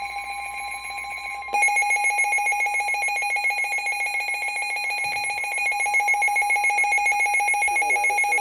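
Emergency Alert System attention tone for a flash flood warning, heard through a TV: a loud, steady, piercing alert tone that turns into a louder, rapidly pulsing tone about a second and a half in.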